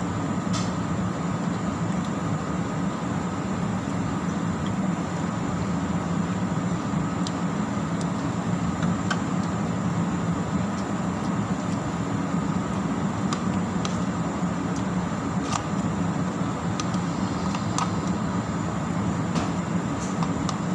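Steady droning hum of running kitchen machinery, with occasional light clicks of a spoon on a plastic plate.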